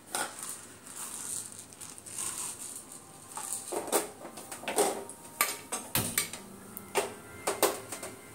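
Whole spices (cloves, black pepper, cinnamon, black cardamom) sizzling in hot ghee in an aluminium pressure cooker, with a faint hiss and several scattered sharp crackles.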